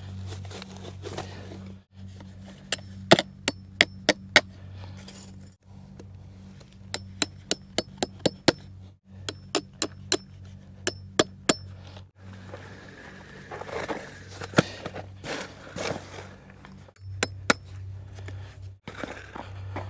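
Hammer blows on metal staples being driven to pin down black plastic pipe. They come in quick runs of several strikes, each with a short metallic ring, over a steady low hum.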